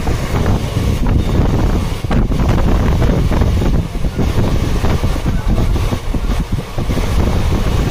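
Wind buffeting the microphone over the low rumble of a moving train, a loud, rough, ever-fluctuating noise with no let-up.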